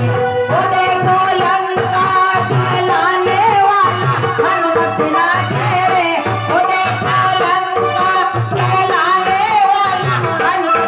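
Devotional bhajan: a voice singing a wavering melody over a steady drum beat and hand percussion.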